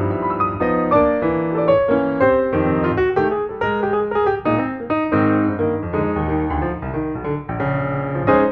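Piano music playing: a steady run of notes and chords.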